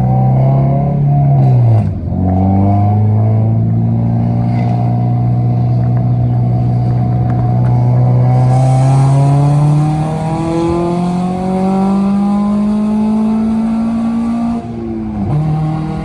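Stock Honda K24A 2.4-litre inline-four accelerating hard through a tunnel: revs drop at an upshift about two seconds in, climb steadily for some twelve seconds, and drop again at another upshift near the end. About halfway through the climb the sound turns harsher as VTEC engages.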